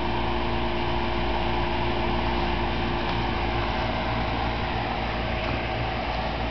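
Steady mechanical drone with a few held tones. One of the tones drops out a little past halfway.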